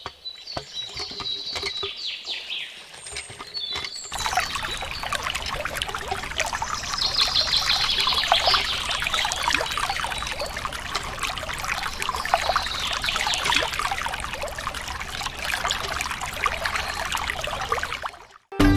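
Water from a hand-worked miniature hand pump pouring through a tube into a small plastic pond. It starts about four seconds in, after a few faint high chirps, runs steadily, and cuts off just before the end.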